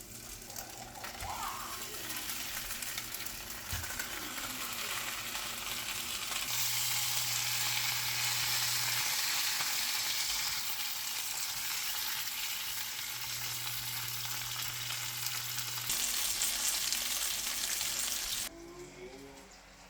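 Gulbi (dried yellow croaker) pan-frying in oil, sizzling steadily. The sizzle grows louder over the first few seconds and stops abruptly near the end.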